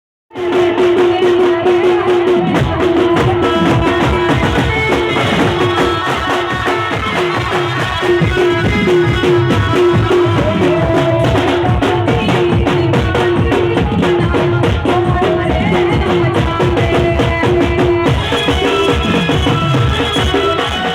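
Indian folk music with drums and percussion keeping a steady beat under a repeated melodic note; it starts abruptly just after the opening.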